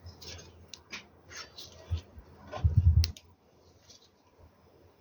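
Hands handling battery leads and terminals on an inverter: scattered light clicks and small knocks, with one louder, dull low knock a little past the middle.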